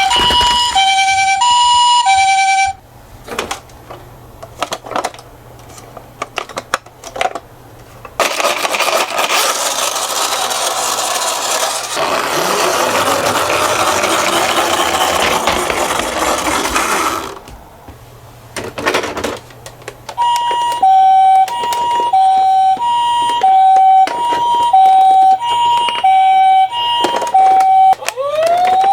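Toy ambulance's electronic two-tone hi-lo siren, alternating a high and a low note about once a second. It stops about three seconds in, leaving scattered clicks and then a steady rattling rush of about nine seconds. The hi-lo siren comes back about twenty seconds in, and right at the end a rising siren wail starts.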